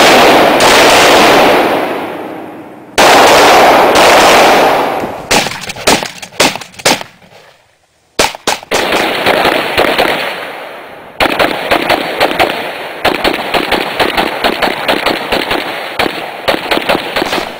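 Rapid rifle gunfire on a shooting range. It opens with two long, dense strings of shots that echo and fade, then a handful of separate shots. After a brief pause about eight seconds in comes a long run of quick shots.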